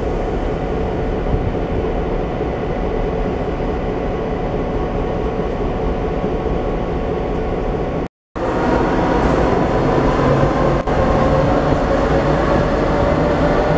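An SNCB AM08 Desiro electric multiple unit moving off with a steady electric whine. After a sudden break about eight seconds in, an SNCB Class 13 electric locomotive with double-deck coaches pulls away, louder, its whine slowly rising in pitch.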